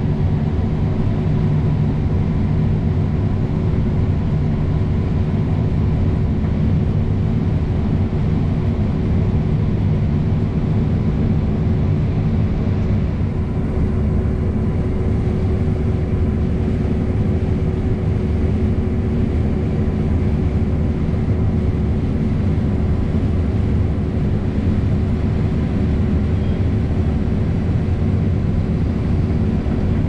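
Heavy diesel harvest machinery running steadily: a low engine drone with a constant hum over it.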